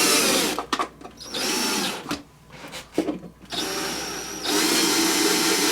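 Cordless drill-driver running in three short bursts with clicks between, driving in the mounting screws of an electrical receptacle.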